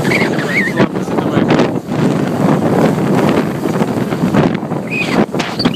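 Strong wind buffeting the microphone aboard a rigid inflatable boat under way through choppy water, uneven and gusting, with a few brief dips.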